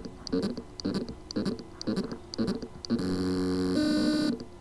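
Seagate 2TB mobile hard drive (ST2000LM007) with loose spindle motor contacts, its motor pulsing about twice a second with a small tick on each pulse, then giving a steady whine that steps in pitch about three-quarters of a second later and stops near the end. The motor can spin but cannot reach its full speed because of the loose contacts.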